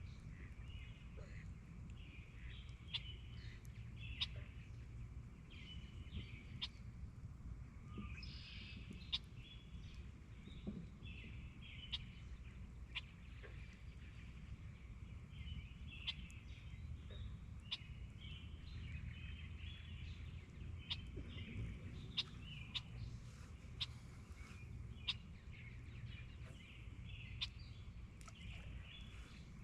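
Birds chirping and calling again and again, with scattered sharp clicks and a steady low rumble underneath.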